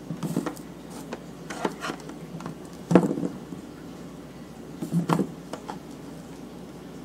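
Scattered light knocks and clicks of handling, the sharpest about three seconds in and another pair around five seconds in, over a low steady hum.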